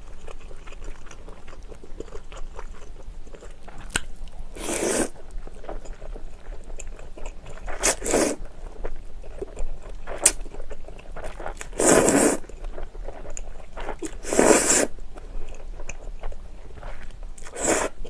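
Close-miked eating of cream-sauced spaghetti: soft, wet chewing throughout, broken by about five short, loud slurps as noodles are sucked into the mouth.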